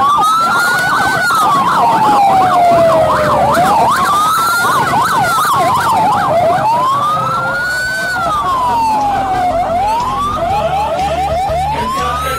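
Electronic emergency-vehicle sirens, at least two at once: a slow wail rising and falling every few seconds over a fast warbling yelp, turning to quick repeated rising whoops near the end.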